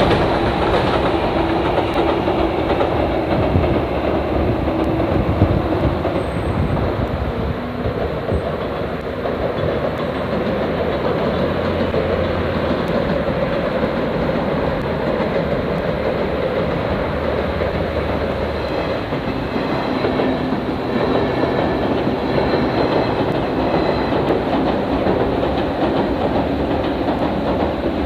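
Electric train running on the JR Nara Line, a steady rumble with the clickety-clack of wheels over the rails.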